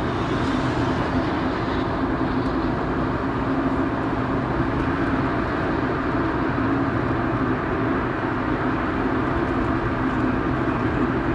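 Cabin noise inside a first-generation Honda Insight driving at speed: the 1.0-litre three-cylinder engine holds a steady drone under constant road, tyre and wind noise.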